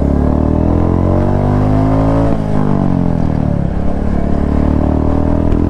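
Royal Enfield Classic 350 single-cylinder engine under hard acceleration, heard from the bike. Its pitch rises for about two seconds, then drops sharply, as at a gear change, and settles.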